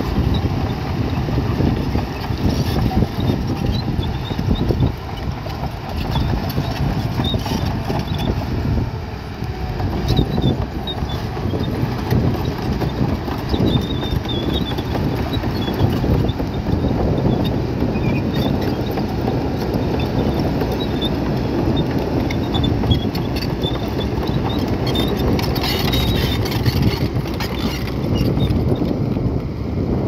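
Heavy earthmoving machinery at work on rock: an engine running under load beneath a steady, dense clatter of stone and steel.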